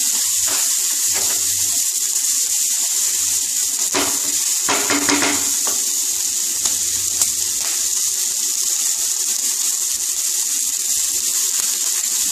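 Chopped onion, tomato, capsicum, ginger and garlic sizzling steadily in hot oil in a non-stick kadai while being sautéed. A wooden spatula stirs through them at the start, with a brief scrape again about four to five seconds in.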